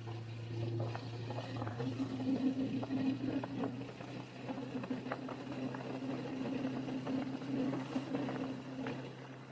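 Motorcycle engine running steadily at cruising speed, with many short clicks and rattles over the hum.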